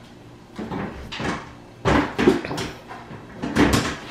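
Clear plastic bins being handled in the pull-out freezer drawer of a new refrigerator: a series of knocks and plastic clatters, loudest about two seconds in and again near the end.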